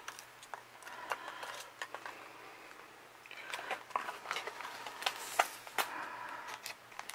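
Hands handling a clear plastic deli cup and styrofoam packing in an insulated shipping box: irregular light clicks and taps, with soft rustling in places.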